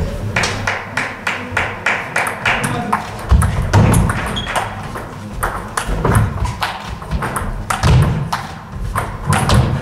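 Table tennis rally: the ball clicks rapidly off bats and table, with heavy thuds from the players' feet on the wooden floor several times. The hall echoes, and faint clicks from rallies at other tables mix in.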